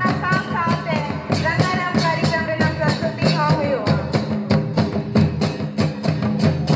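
Santhali folk dance music played live: hand drums and small hand cymbals beating a fast steady rhythm, with a sung melody over them for the first half that stops about halfway while the drumming carries on.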